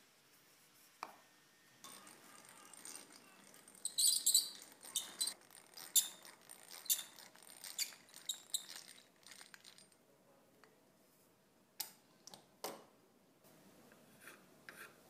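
Hand-cranked eggbeater drill boring into a wooden block: a run of irregular squeaks and metallic ticks from the turning gears and the bit cutting wood, stopping after several seconds. A few separate sharp clicks follow.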